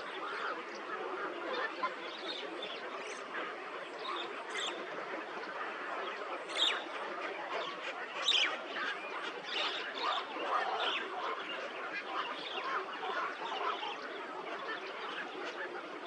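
A flock of birds calling all at once: a dense chatter of many short overlapping calls, with a few sharper, louder calls standing out about six and eight seconds in.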